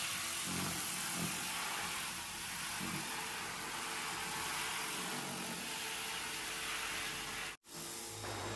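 Pressure washer spraying a jet of water against the steel smoker barrel: a steady hiss with the washer's motor running underneath. It cuts out for an instant near the end and resumes.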